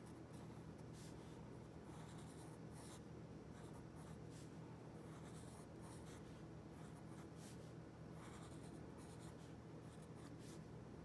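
Faint scratching of a pencil drawing short strokes on paper, over a steady low hum.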